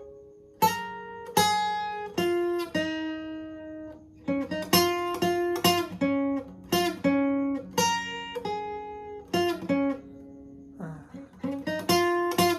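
Guitar tuned a half step down playing a lead passage of plucked notes and double stops, each note ringing out and decaying. There is a short lull about ten seconds in before more notes.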